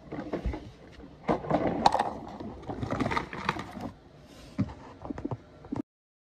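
Plastic Mighty Fleet Titans toy garbage truck being handled against a toy garbage can: a run of irregular plastic clicks, scrapes and clatters, loudest a little over a second in. The sound cuts off suddenly near the end.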